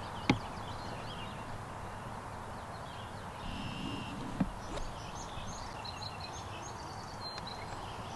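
Open-air field ambience with birds chirping, the chirps busiest in the second half. Two sharp clicks, the louder just after the start and another about four seconds in.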